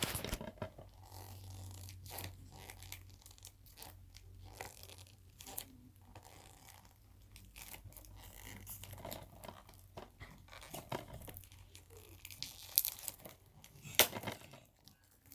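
A mailed package being torn open by hand: irregular tearing, rustling and crinkling of the packaging, with a few sharper snaps near the end.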